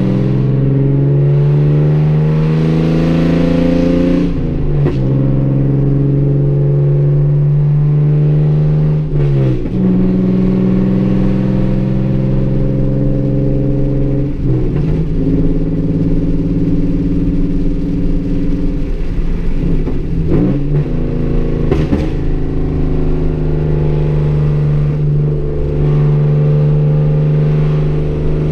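2014 Hyundai Genesis Coupe 3.8's V6 running through a straight-piped full exhaust (headers, 2.5-inch piping, catback), heard from inside the cabin: a loud, deep, steady engine note. The note breaks off briefly and picks up again about four times, and there is one sharp click about two-thirds of the way through.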